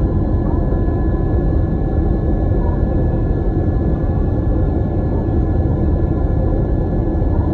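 Boeing 777-300ER's GE90-115B turbofan at takeoff thrust, heard from inside the cabin: a steady deep rumble with faint, steady whining tones above it.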